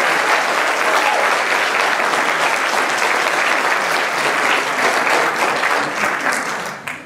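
Congregation applauding, a dense steady clapping of many hands that dies away in the last second.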